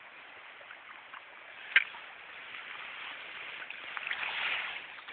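Shallow stream water running, with one sharp click a little under two seconds in, then a swell of splashing near the end as a rainbow trout is scooped up in a landing net.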